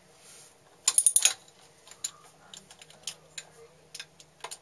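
Light metallic clicking from a Perkins 4-108 diesel's rocker arm rocked by hand against its valve stem: a quick run of about five clicks about a second in, then scattered single clicks. The free play shows the valve has clearance.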